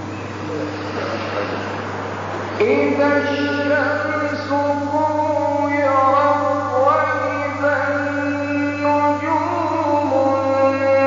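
A male voice reciting the Quran in melodic tajweed style, drawing out long held notes that shift slowly in pitch, beginning about two and a half seconds in after a soft hissy stretch. A steady low hum runs underneath.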